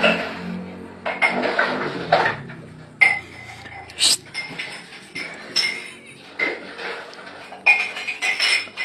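Dishes, pots and cutlery clinking and knocking against each other in a kitchen sink as they are washed by hand, in irregular scattered clinks, a few of them ringing briefly.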